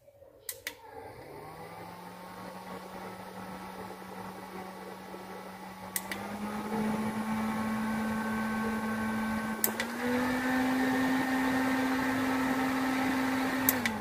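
Small F95B portable rechargeable desk fan switched on with a click of its button, its little motor humming up to speed; two more clicks each step it up a speed setting, the hum rising in pitch each time. A last click near the end switches it off and the hum falls away as the blades wind down.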